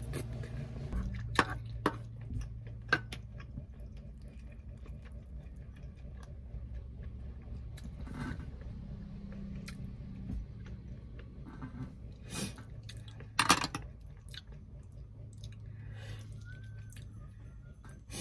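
Close-up chewing and wet mouth sounds of someone eating rice and vinegar-stewed tilapia, with a few sharp clicks, the loudest about thirteen seconds in. A low steady hum runs underneath.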